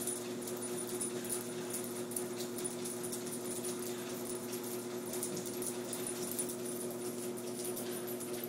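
Motorized treadmill running with a steady hum, while a Jack Russell terrier walks on the moving belt, its paws tapping lightly in a quick, uneven rhythm.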